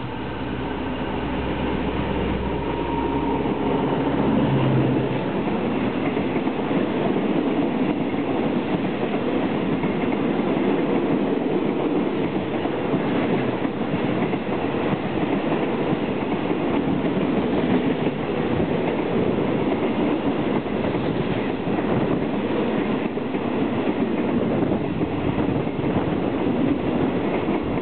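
Alsthom diesel-electric locomotive passing close by, its engine running and rising to its loudest about four to five seconds in. It is followed by a long train of bulk tank wagons rolling steadily past on the adjacent track, with loud rumbling and wheels clicking over the rail joints.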